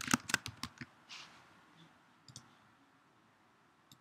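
Quiet computer keyboard typing: a quick run of keystrokes in the first second, then a couple of lone clicks later on, the last at the very end.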